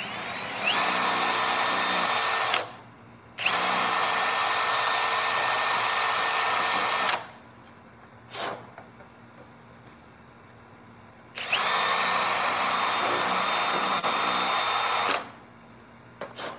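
Cordless drill running in three runs of a few seconds each, drilling into a motorcycle's plastic fairing to free the mirror mounts. Each run spins up with a rising whine, then holds a steady high whine. Short clicks fall in the pauses.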